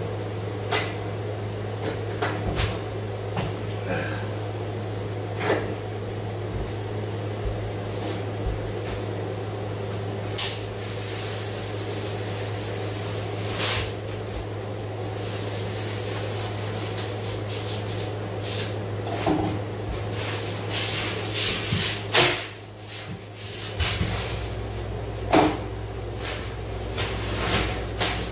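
Scattered clicks, knocks and short scraping strokes as a rigid foam insulation board is handled, scored and cut with a utility knife, over a steady low hum.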